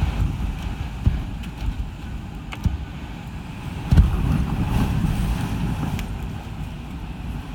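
Typhoon wind gusting and buffeting the microphone in a low, rumbling roar, with a stronger gust about four seconds in.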